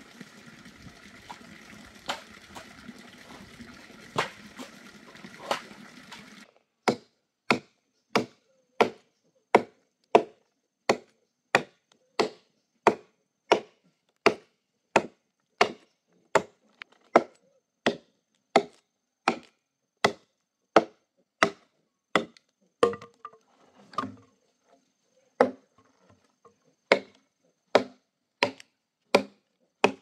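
A few scattered knocks over a steady hiss, then regular chopping blows start about six seconds in, roughly three every two seconds, with a brief break past the two-thirds mark.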